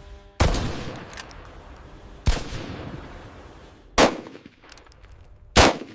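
Four single gunshots, spaced about one and a half to two seconds apart, each with a ringing, fading tail; the first two echo longest.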